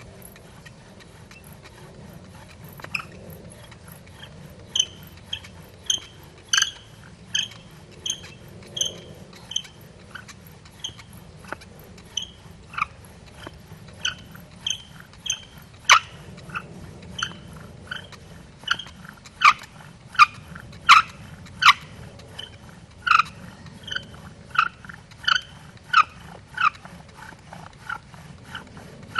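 Bow drill being worked: the wooden spindle squeaks in short, pitched chirps, about one and a half a second, as the bow saws it back and forth. The squeaking starts a few seconds in and keeps a steady rhythm.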